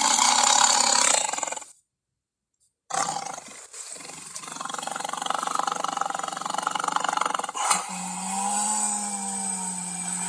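Creature roar sound effects made for a Ceratosaurus dinosaur. A loud roar cuts off about two seconds in. After about a second of silence, a second, longer roar starts and runs on, with a steady low note coming in near the end.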